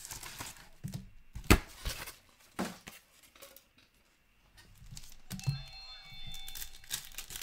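Foil trading-card pack wrappers and a cardboard box crinkling and rustling as packs are pulled out and handled, with a few sharp taps, the loudest about a second and a half in.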